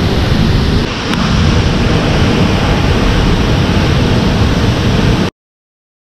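Waterfall rushing close by: a loud, steady roar of falling water, with wind rumbling on the microphone. It cuts off suddenly about five seconds in.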